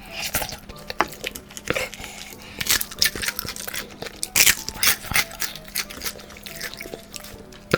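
Close-up crunching bites and chewing of crispy fried garlic chicken, an irregular run of sharp crackly crunches, loudest a little past the middle.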